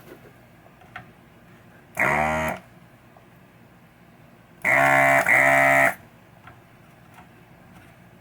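Electric desoldering gun's vacuum pump buzzing in two short bursts, about half a second at two seconds in and just over a second near five seconds in with a brief break, sucking the solder off a large component's terminal on the power supply board so the part can be pulled out.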